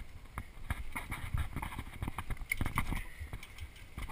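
Mountain bike rattling and clattering down a bumpy dirt singletrack: irregular knocks of chain and frame jolting over the rough ground, over a low rumble, easing off briefly about three seconds in.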